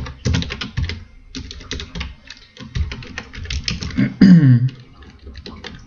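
Computer keyboard typing: quick runs of key clicks as code is entered, with a brief falling voice sound about four seconds in.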